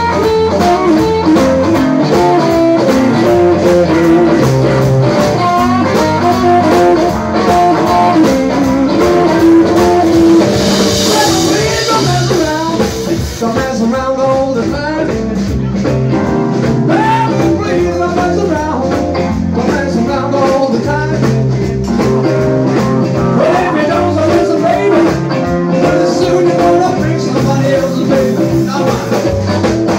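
Live blues band playing an instrumental stretch: Stratocaster-style electric guitar with bending notes over electric bass and drums.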